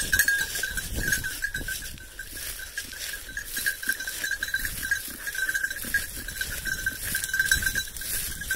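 A bird dog's collar bell jingling steadily as the dog moves through the cover, with footsteps and grass and brush swishing against legs.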